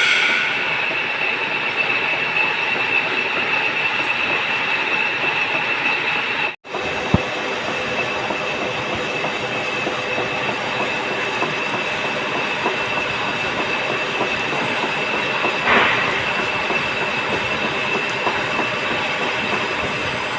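Metal lathe running while turning a shaft: a steady grinding, rattling machining noise with a thin high whine throughout. The sound cuts out for a split second about six and a half seconds in, and there is a brief louder swell near the end.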